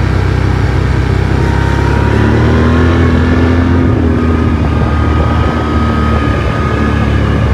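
A vehicle engine running steadily at moderate speed. Its note rises a little between about two and four seconds in, then settles.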